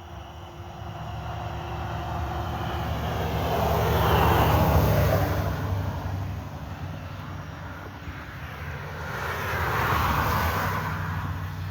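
Two vehicles drive past one after the other, each rising and fading. The first is loudest about four to five seconds in, the second about ten seconds in.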